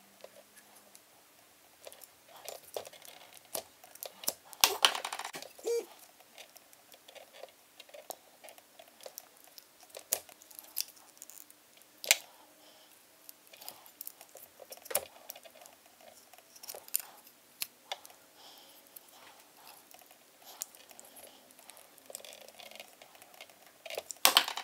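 Close handling noises of a knife blade working at a plastic GoPro adhesive mount and the red backing liner of its 3M VHB tape: scattered small clicks and scrapes, with louder scraping rustles about five seconds in and near the end.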